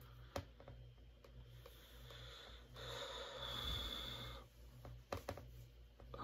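A faint, breathy exhale lasting about a second and a half in the middle, with a few soft clicks before and after it over a low steady hum.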